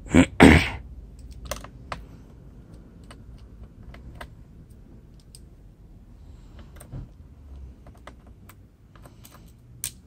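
Scattered small clicks and taps of a screwdriver and loose screws against the plastic underside of a ThinkPad X230 laptop while its exterior screws are being removed, with two louder knocks just after the start.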